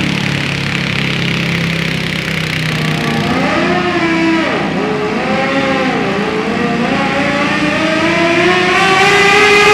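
Garden pulling tractor engine idling, then revved up and down several times, then climbing steadily in pitch under load as the tractor pulls away with the sled.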